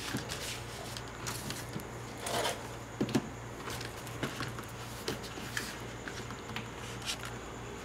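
Small plastic sample packets and travel-size tubes being handled and set down: a string of short rustles, crinkles and light knocks.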